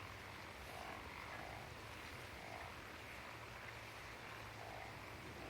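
Faint frogs croaking, a few short calls at uneven intervals over a low steady background hum.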